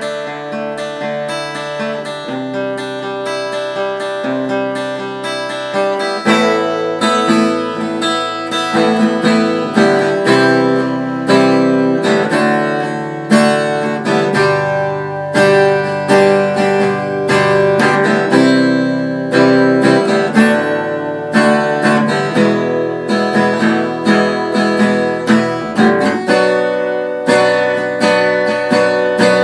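Acoustic guitar played solo, chords held and changed every couple of seconds, soft for the first six seconds and then strummed harder and louder.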